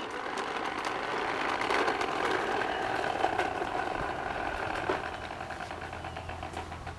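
Pink toy lawnmower making a steady engine-like running sound as it is pushed along, with small ticks and rattles, easing off a little toward the end.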